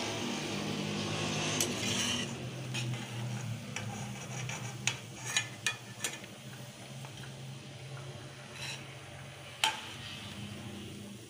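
Hot oil sizzling in a kadai as fried tikiyas are lifted out with a metal spoon, with several sharp clinks of the spoon against the pan. The sizzling is strongest at first and thins out as the pan empties.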